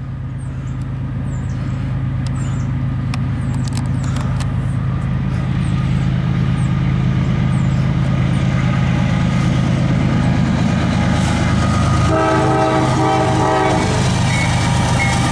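CSX diesel locomotives at the head of an empty autorack freight train approaching, their engine rumble growing steadily louder. About twelve seconds in, the locomotive horn sounds once for a second and a half or so.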